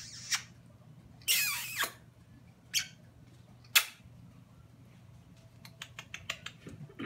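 Budgerigar chirping: a few short, sharp chirps and one longer, wavering call about a second and a half in, then a quick run of faint clicks near the end.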